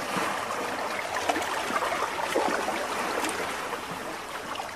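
Steady rushing of running water with small splashy crackles, like a stream or fountain.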